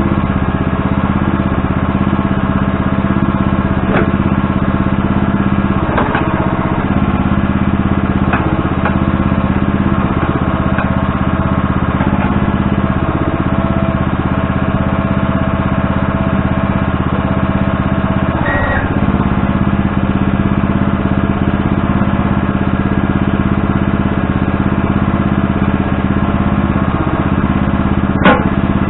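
Backhoe engine running steadily at a constant speed, with a few sharp clanks.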